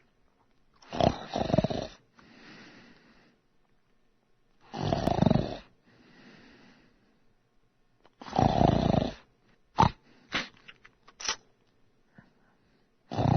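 A person snoring: three loud snores on the in-breath, about four seconds apart, each followed by a quieter breath out, then a few short quick sounds near the end.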